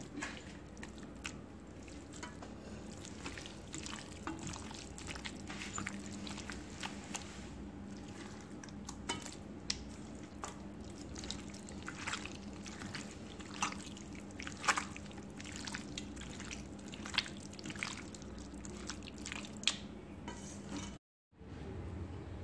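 Raw chicken pieces mixed by hand into a thick, wet chicken 65 batter of flour, curd and oil in a steel bowl: irregular wet squelches and slaps over a steady low hum.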